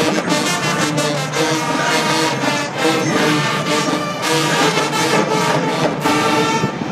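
High school marching band playing, its brass section (sousaphones among them) over a steady drum beat. Heard from the stadium stands.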